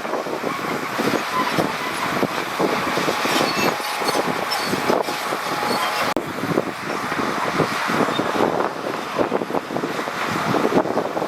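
Heavy earthmoving machinery working over stone and soil: a dense, rough crackling and rumbling noise that holds steady throughout.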